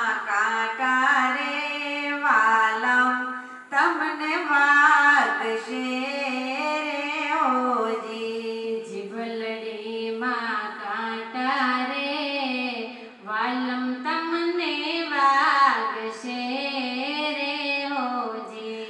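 Women singing a Gujarati devotional bhajan through microphones, in sung phrases with short breaks for breath between them.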